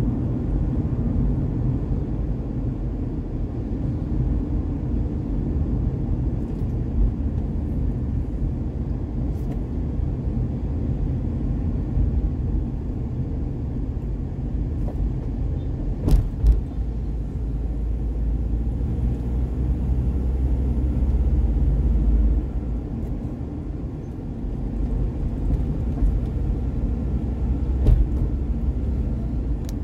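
Steady low rumble of a vehicle driving along a street among cars and motor scooters, with a couple of brief knocks, one about halfway through and one near the end.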